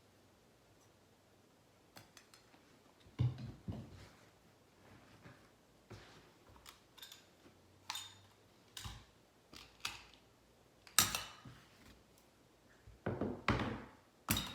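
Irregular sharp clicks and knocks of hand tools at work on a stair carpet runner, with the loudest strikes about three seconds in, around eleven seconds in, and in a quick cluster near the end.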